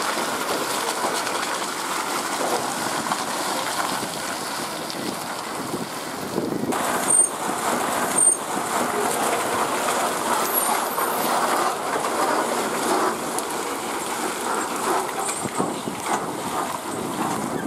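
Ashok Leyland bus running slowly past through a muddy, potholed dirt road, its diesel engine and mud-churning tyres making a steady rumble. Two short sharp knocks come about seven and eight seconds in.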